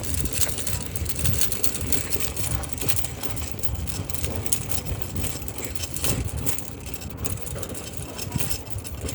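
A bicycle being ridden along a street: a steady rumble with light rattling and a few sharper clicks.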